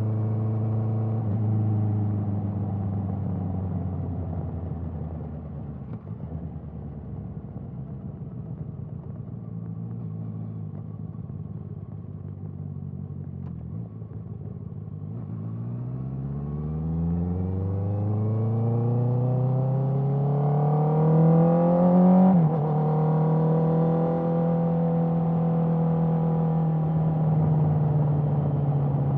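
Honda CBR650R inline-four running through an Akrapovič exhaust: the engine note falls and runs low and quieter for several seconds, then climbs steadily in pitch under acceleration. About two-thirds through the pitch drops sharply at an upshift, and the engine then holds a steady note.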